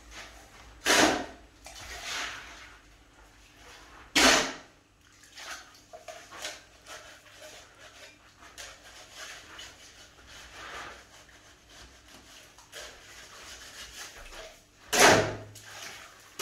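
Steel shovel scraping across a concrete floor as it turns a wet cement mix. There are loud scrapes about a second in, about four seconds in and near the end, with quieter scuffing and shovelling between.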